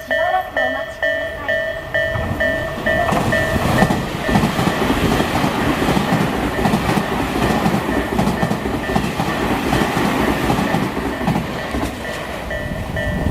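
Japanese level-crossing alarm ringing in a pulsing tone, about two rings a second, as a train passes over the crossing. The train's wheel and rail noise swamps the alarm from about three seconds in, and the alarm comes through again near the end.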